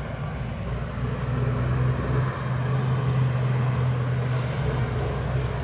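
Low, steady engine drone of a motor vehicle, growing a little louder about a second in.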